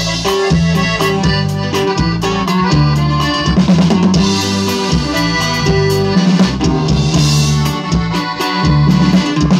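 Live band playing an instrumental passage with no singing: a drum kit beat with snare and bass drum to the fore, under accordion and guitars.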